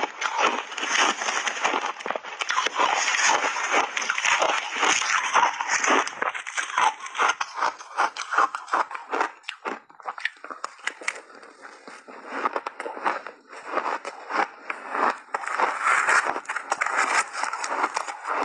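Close-miked crunching of shaved ice being chewed in big mouthfuls, dense crackling clicks, mixed with a metal spoon scraping and scooping through a bowl of shaved ice coated in milk powder and matcha.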